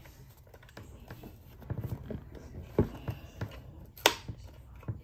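Small plastic clicks and taps as the cassette door is pressed and worked against the back of a Cricket doll, its clips not yet seating. There are a few scattered clicks, and the sharpest comes about four seconds in.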